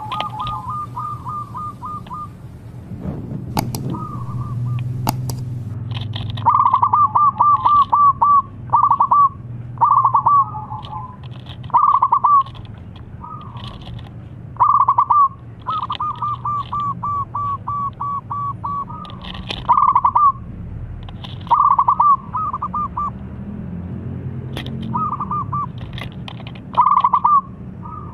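Zebra dove (perkutut) cooing in phrases of rapid rattling notes, some short and some drawn out over a couple of seconds, repeated every second or two. Fainter high chirps of other birds and a low steady hum run underneath, with a couple of sharp clicks a few seconds in.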